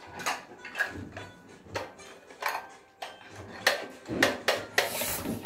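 Plastic toy car handled in bathwater: a string of irregular light clicks and knocks as its parts are worked, with a brief wash of water noise near the end.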